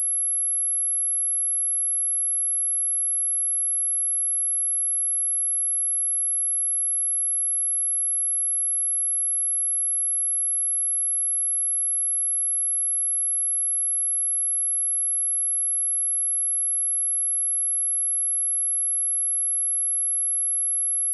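Pure sine-wave test tone at 11125 Hz, a single high-pitched whine held steady at one pitch and level, used to test speakers and to vibrate water and dust out of a speaker.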